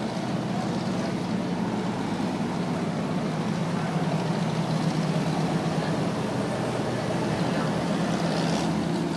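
A river boat's engine running at a steady drone, heard from aboard, with water rushing along the hull.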